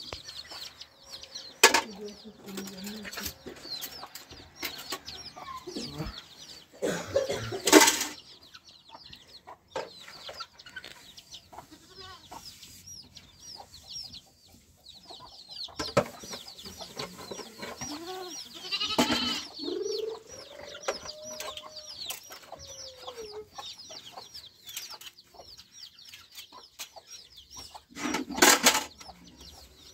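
Domestic chickens clucking amid constant rapid high chirping. A few loud clattering noises come twice early, once in the middle and once near the end.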